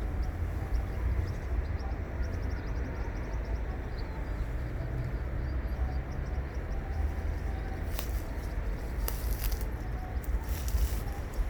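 Stream water running steadily with a low rumble underneath, faint high bird chirps over it in the first few seconds, and a few sharp clicks from about eight seconds in.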